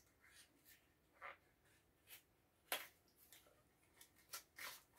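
Faint scattered clicks and taps of a deck of playing cards and its box being handled and opened, the sharpest one a little past halfway.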